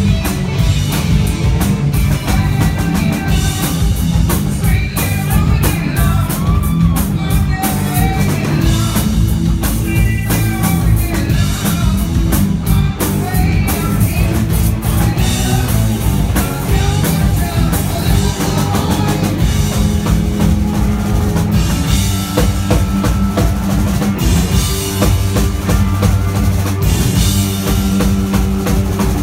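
Live rock band playing loud: electric guitars over bass and a drum kit, with pitched lines bending up and down in the middle of the sound.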